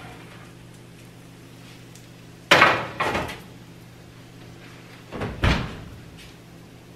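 Two loud clattering knocks about three seconds apart as a metal baking sheet of salmon bites comes out of the oven onto the counter and the oven door is shut, over a faint steady low hum.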